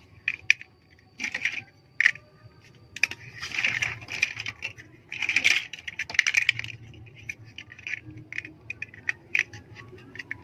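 Plastic LEGO bricks clicking and rattling as they are handled and pressed together. Sharp clicks come throughout, with a few longer rattling stretches in the middle.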